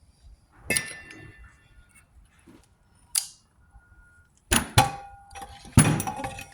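Metal engine parts and tools clanking and clinking on a workbench: a ringing knock about a second in, a brief high hiss near the middle, then a cluster of louder ringing clanks in the last two seconds.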